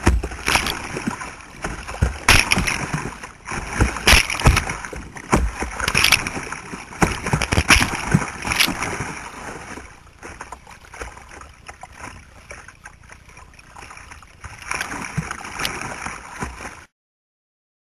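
River water rushing and splashing against the bow of a paddled boat running a riffle, with loud irregular splashes. The splashing eases off after about ten seconds, picks up briefly again, then cuts off suddenly near the end.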